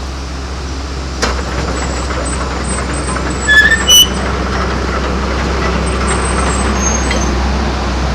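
Komatsu PC200-6 hydraulic excavator's diesel engine running steadily with a low hum. There is a sharp click about a second in, and a few brief high-pitched squeaks near the middle.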